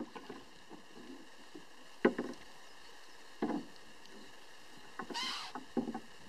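Wooden oars knocking against a small rowboat as they are handled and laid in the boat: four or five separate hollow knocks, with a brief scrape about five seconds in.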